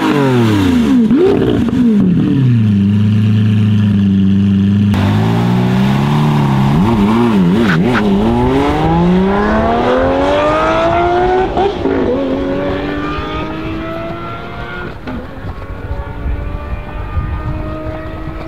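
Lamborghini V12 engines. First a blip of revs that drops back, then a low steady note for a few seconds. Then a Lamborghini Murciélago's V12 accelerates hard from a standing start, its pitch climbing through the gears with about two upshifts, getting quieter as the car pulls away.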